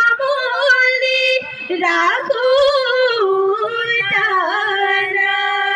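A woman singing a Bihu song, holding a string of long notes and sliding in pitch between them.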